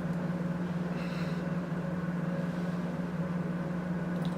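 Steady low background hum, with a few faint small clicks near the end.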